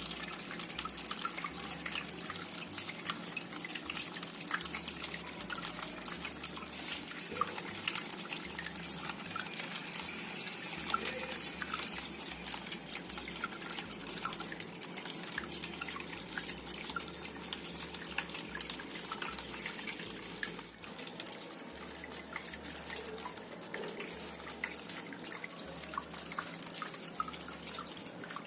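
Small homemade indoor waterfall fountain running: water trickling and dripping steadily, with many small splashes.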